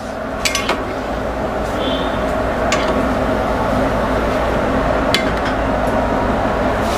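A long metal ladle stirring thick curry in a large metal pan, knocking against the pan in a few sharp clinks. Underneath runs a steady rushing noise that grows a little louder over the first few seconds.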